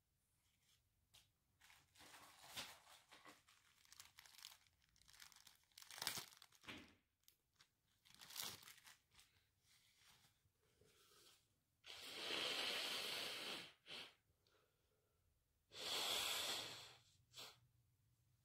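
Paper tissue rustling and crinkling, then a person blowing their nose hard twice, each blow about a second and a half long.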